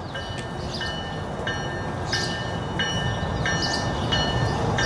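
A warning bell ringing steadily, about three strikes every two seconds, over the low rumble of a Tri-Rail push-pull train with a Bombardier bi-level cab car leading as it rolls in, the rumble growing louder as it nears.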